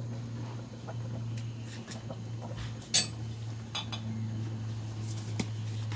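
Metal ladle clinking against an aluminium cooking pot while stirring a coconut-milk fish stew, a few scattered clinks with a sharper one about three seconds in. A steady low hum runs underneath.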